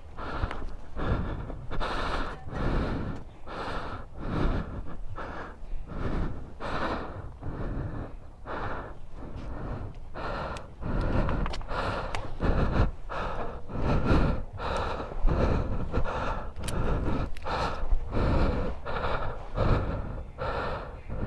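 Tie-down straps being worked and tightened: a run of short rasping strokes, roughly one or two a second, with a few sharp clicks.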